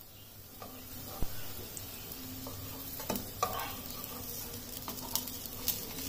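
Grated potato pancakes shallow-frying in oil in a nonstick frying pan, a faint steady sizzle, with scattered light clicks and scrapes of a metal slotted spatula against the pan as a pancake is lifted to check its browning.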